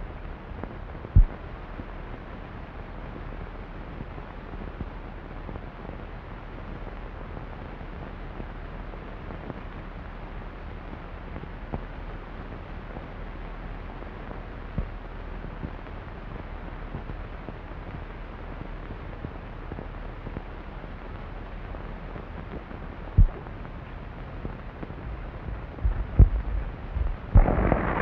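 Steady hiss of an old film soundtrack with no dialogue, broken by a few isolated low thumps. Near the end a cluster of knocks comes in, then a much louder rush of noise.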